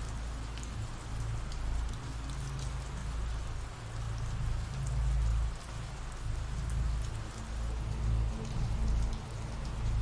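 Steady rain from an ambient rain sound-effect track, with a deep rumble underneath that swells and fades.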